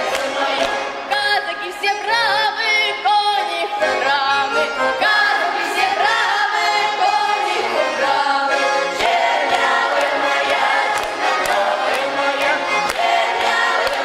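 Children's folk choir singing a Cossack folk song in chorus, accompanied by an accordion.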